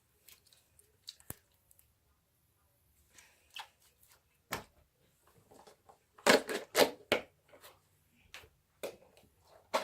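Slime being pulled apart and squished by hand, making scattered sticky clicks and pops, with a cluster of louder squelches about six to seven seconds in.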